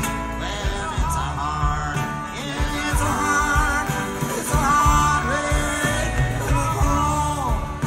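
Live folk-rock band music: a male lead vocal carries the chorus line over guitars and a steady electric bass.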